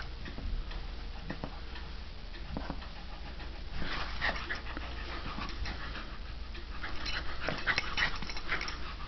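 Scottish terrier panting close to the microphone during ball play, in clusters of quick breaths about four seconds in and again from about seven seconds.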